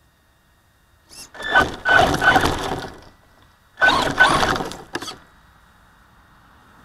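Traxxas Slash RC short-course truck pulling away in two loud, noisy bursts of throttle, about a second in and again near four seconds, its tyres churning through gravel and leaf-covered dirt.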